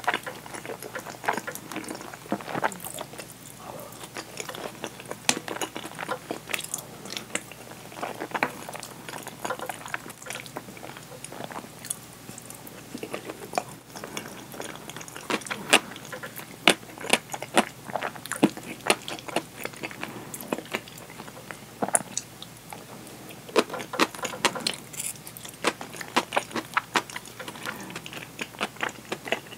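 Close-miked chewing and wet mouth clicks of someone eating curry rice, with a wooden spoon scraping and knocking against the bowl.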